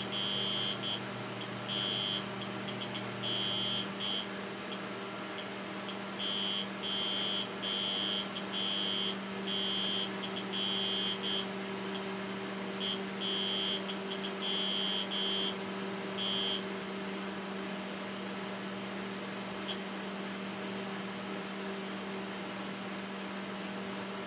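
TRS-80 Model 16B's 8-inch floppy drive working through the XENIX install disk as it boots: a run of irregular high-pitched buzzes, some brief and some up to a second long, that stop about 16 seconds in. Under them runs a steady low hum from the machine.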